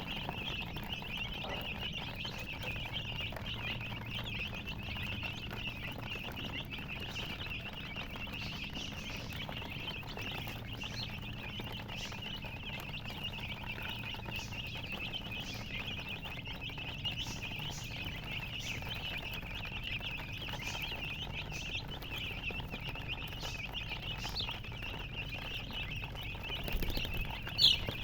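Many baby chicks peeping together in a dense, continuous high-pitched chorus, with scattered single peeps above it and one louder peep near the end.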